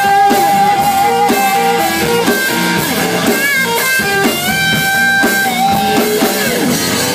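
Live rock band playing: a voice holds a long sung note for the first two seconds, over a repeating picked electric-guitar figure and drums.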